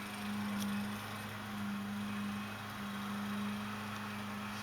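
A steady low hum in the room, one even tone with a fainter lower one beneath it, and no other distinct sound.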